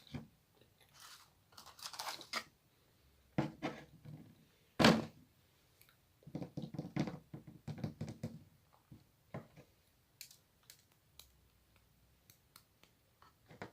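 Close-miked eating of macarons: crisp crunching of the shells and chewing in bursts, the loudest crunch about five seconds in, then scattered small mouth clicks.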